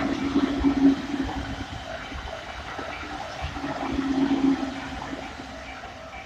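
Train running through, a low hum with rushing noise that swells twice, over a level-crossing warning bell ringing on and on at about two strokes a second.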